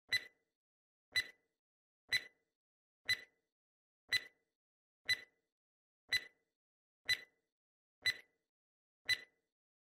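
Quiz countdown timer sound effect: ten short, sharp clock-like ticks, one a second, with silence between them, marking the seconds left to answer.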